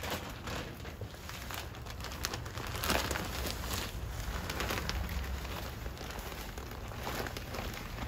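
Plastic potting-soil bag crinkling and rustling as loose potting mix is poured from it into a plastic bucket, with irregular crackles and a louder rush about three seconds in.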